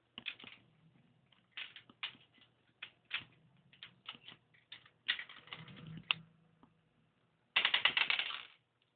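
Small plastic backgammon checkers clicking and clattering irregularly as a cockatiel knocks them about and off a travel backgammon board with its beak. There is a rapid rattling run about five seconds in and a louder dense clatter near the end.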